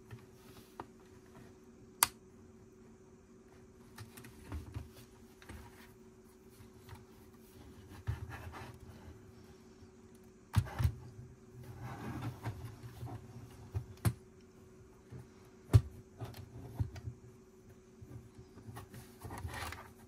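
Plastic Lego bricks being handled and pressed together: sharp single clicks a few seconds apart, the loudest about 2 seconds in and near the middle, with soft rattling and rustling of loose pieces between them over a faint steady hum.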